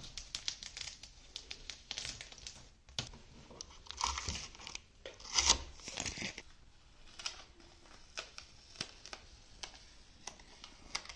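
Painter's tape being peeled off freshly painted wood trim: a run of irregular ripping, crackling pulls, the loudest about five and a half seconds in.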